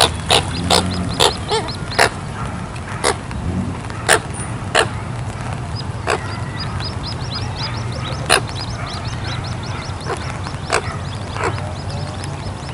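Coots calling: about a dozen short, sharp calls at irregular intervals, over a faint, fast, high-pitched twittering.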